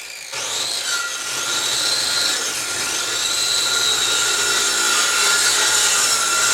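Electric sander running steadily with a constant whine, sanding down an epoxy resin inlay.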